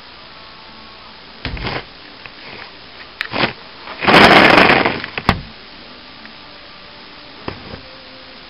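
Handling noise from a camera held down on carpet: a few soft thumps, then a loud scraping rustle for just under a second about four seconds in as it is swung, and a sharp click, over a steady low hiss.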